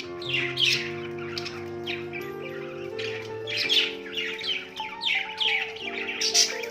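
Budgie chirping and chattering in a quick run of short calls, over background music with slow, sustained notes.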